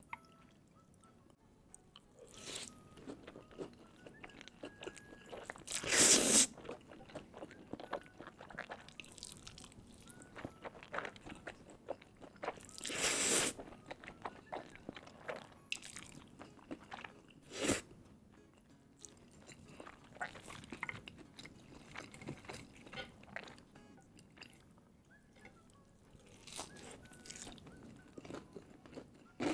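Close-miked eating: crunching and chewing through crispy breaded chicken katsu, with loud crunching bites about six and thirteen seconds in and a sharp click a few seconds later.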